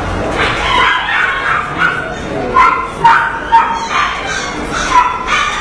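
Pekingese dog giving a string of short, high-pitched yelps and whines, several in quick succession, loudest midway through.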